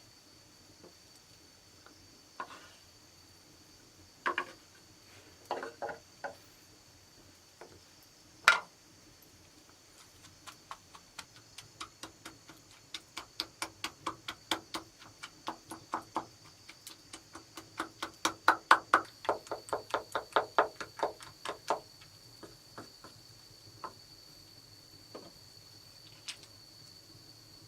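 Sharp knocking strikes: a few scattered ones at first, then a steady run of about three a second for some twelve seconds before they thin out. A steady high insect drone runs underneath.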